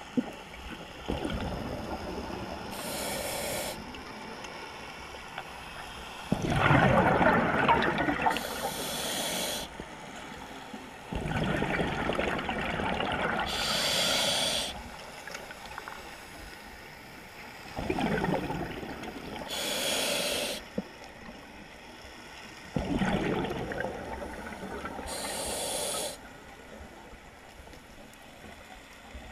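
Scuba diver breathing through a regulator: a hiss on each inhale and a rush of exhaust bubbles on each exhale. There are five slow breaths, about one every five to six seconds.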